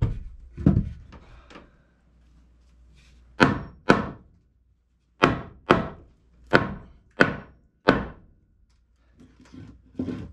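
Blows struck on wooden floor-joist framing: two dull thuds at the start, then seven sharp knocks spaced irregularly, about half a second to a second apart, from about three seconds in.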